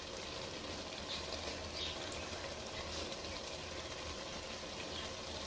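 Faint steady hiss and bubbling of chana dal simmering on low heat in a pressure-cooker pot, with a few soft patters as chopped coriander is dropped onto it.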